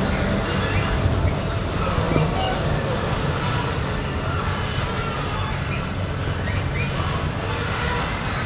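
Steady city rumble with a low hum, and short high squeals that come and go throughout, in the manner of rail wheels squealing.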